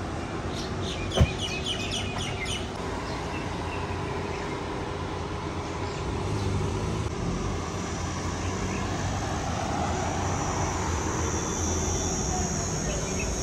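Outdoor city ambience: a steady rumble of distant traffic, with birds chirping for a couple of seconds at the start and a single sharp click about a second in. A steady high-pitched whine comes in near the end.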